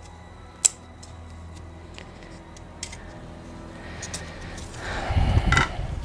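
Light clicks and clinks, then a louder scraping rattle about five seconds in, from a wooden stick worked against the crankshaft inside an opened engine crankcase to pry out a spun connecting-rod bearing. A faint steady low hum runs underneath.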